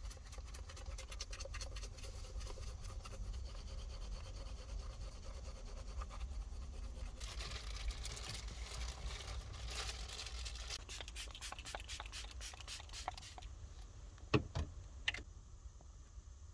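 Scraping and rubbing with many small clicks as things are handled in a small space, with a scratchy stretch in the middle and two sharper knocks near the end.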